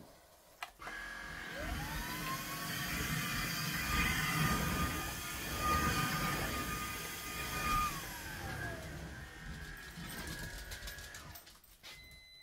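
Cordless vacuum cleaner motor spinning up with a rising whine, running steadily for several seconds, then winding down about eight seconds in.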